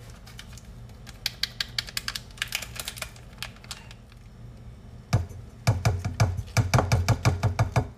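A run of quick, light clicks and taps as seasoning is shaken from a packet into a saucepan. About five seconds in come louder, rapid knocks and clinks of a spoon stirring spices against the saucepan.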